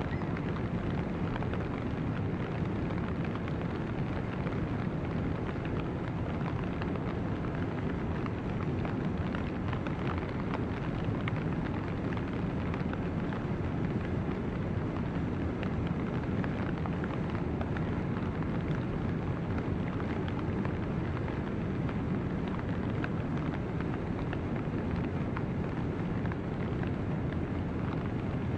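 River ice drift: broken ice floes moving downstream on the current, a steady rushing, rumbling noise of ice and water with faint scattered clicks and crackles.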